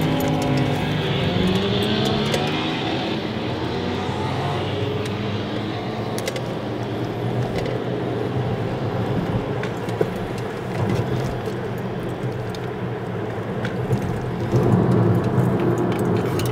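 Motorcycle engines revving close by, their pitch rising and falling over the first few seconds, then steady engine and road noise heard from inside a moving car, with scattered light clicks. The engines swell louder again near the end.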